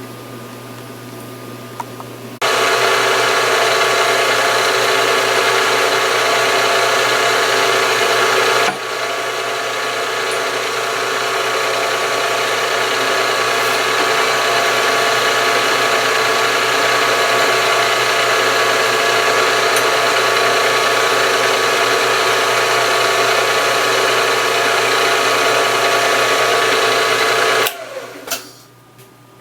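A geared machine-shop machine tool, its motor and gears running with a steady multi-tone whine. It starts about two seconds in, drops slightly in level around nine seconds, and shuts off near the end.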